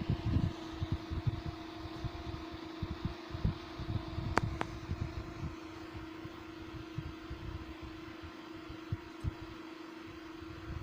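Two salvaged PC power-supply cooling fans running together off a 12-volt supply: a steady hum with a held tone, and low, irregular rumbles of their breeze hitting the microphone. A single sharp click about four seconds in.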